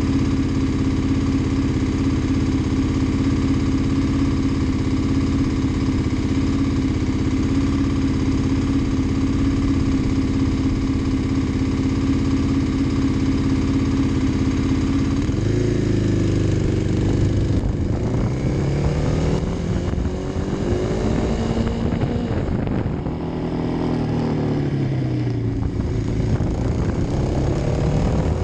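Kawasaki D-Tracker's single-cylinder four-stroke engine idling steadily, then pulling away about halfway through. Its pitch rises and drops several times as it accelerates and shifts up through the gears.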